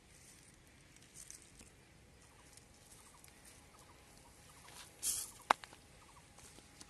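Quiet outdoor ambience with faint short chirps. About five seconds in comes a brief rustle, then a single sharp knock as a clay pot is handled and lifted off the ground.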